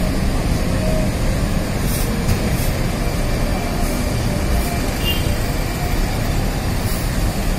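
Coach bus diesel engine idling close by, a steady low rumble, with a few faint clicks over it.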